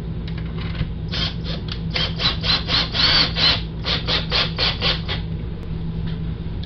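Cordless drill driving a screw into an RV window frame: a run of quick rasping pulses, about four or five a second, starting about a second in and lasting about four seconds.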